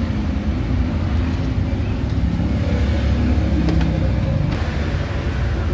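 A motor vehicle's engine running close by: a steady low rumble.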